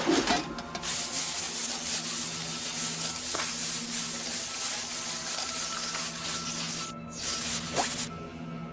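Aerosol spray paint hissing from a mechanical graffiti-spraying device as it paints a wall, a long continuous spray that breaks off briefly about seven seconds in and stops shortly before the end, over steady background music.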